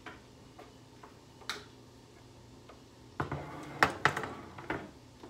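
A few light clicks, then a cluster of knocks and clatter about three seconds in as kitchen items are handled on a countertop.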